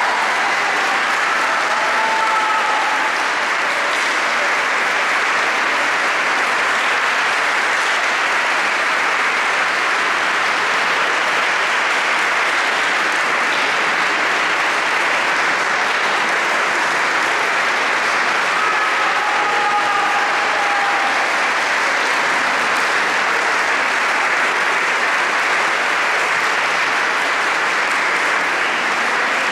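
Audience applauding, a steady dense clapping that holds an even level without a break.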